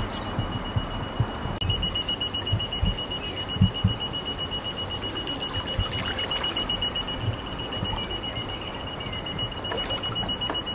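Backpack electric fishing machine's warning beeper giving a continuous high-pitched beep that pulses rapidly from about a second and a half in, the safety signal that the machine is on and current is in the water. Low thumps sound underneath.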